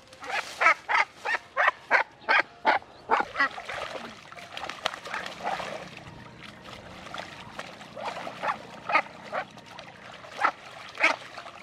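Domestic duck quacking, a fast run of about three quacks a second for the first few seconds, then single quacks now and then.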